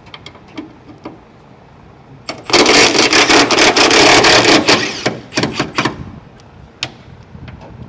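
Cordless power wrench running in one burst of about two and a half seconds, backing out a 13 mm hood hinge bolt, then a few short trigger blips and a light click.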